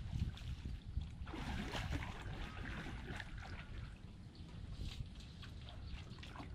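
Shallow water sloshing and trickling as a person wading knee-deep handles a bamboo fish trap and presses it down into the water, with small splashes and ticks and a busier stretch of splashing about a second and a half in.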